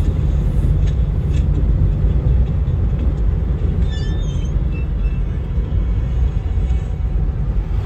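Steady low rumble of a car driving at highway speed: tyre and engine noise.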